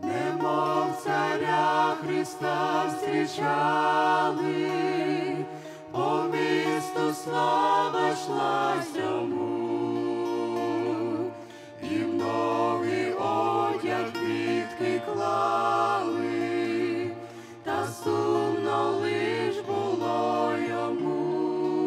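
A small mixed group of women's and men's voices singing a Ukrainian hymn together, over steady low held accompaniment notes that change pitch about nine seconds in.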